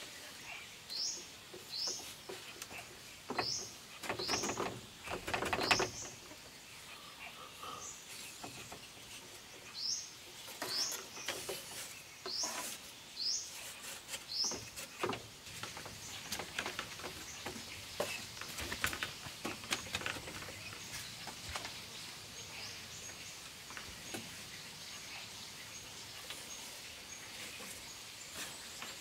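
Split bamboo slats knocking and scraping against each other as they are pushed into place between cords, loudest in a cluster a few seconds in. A bird repeats a short, high, rising chirp twice in runs of about five.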